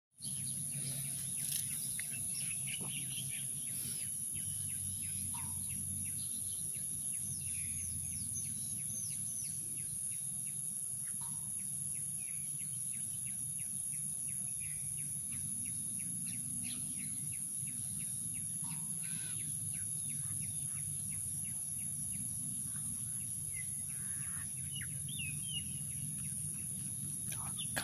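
A steady, high-pitched drone of insects, with birds chirping and calling now and then over it and a low rumble underneath.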